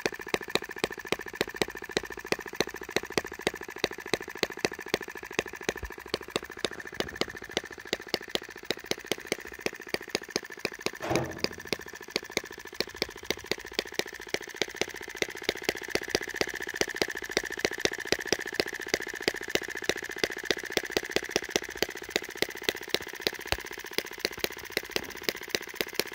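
Microcosm M12 (Eachine ET5) miniature single-cylinder four-stroke petrol engine at a very slow idle: a sharp firing beat a little over twice a second over a steady mechanical rattle, its heavy flywheels carrying it between firing strokes and its idle speed screw held back by an O-ring. A brief louder noise comes about eleven seconds in.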